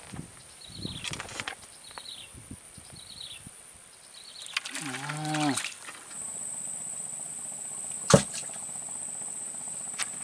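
Swamp ambience: a steady high-pitched insect buzz sets in about six seconds in, after a few short falling chirps in the first three seconds and a brief low pitched call midway. A single sharp click about eight seconds in is the loudest sound.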